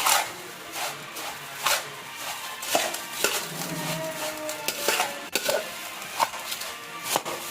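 A spoon stirring and tossing a jhalmuri puffed-rice mix in a bowl, with irregular clinks and scrapes against the bowl.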